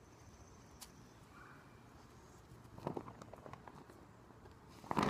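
Colorguard flag silk swishing and the pole being handled during a spin and toss, over a quiet background: a few soft thumps and rustles about three seconds in, and a louder, sudden rustle at the very end.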